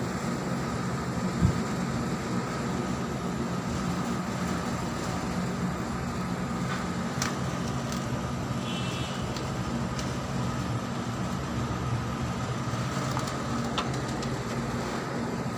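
Steady low background hum with constant noise, broken by one sharp thump about a second and a half in and a few faint ticks later on.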